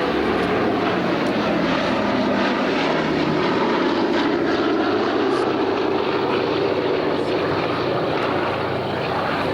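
Four Wright Cyclone radial piston engines and propellers of the Boeing B-17G Flying Fortress Sally B running steadily in flight.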